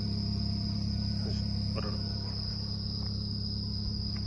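Crickets trilling steadily in one unbroken high note, over a steady low hum.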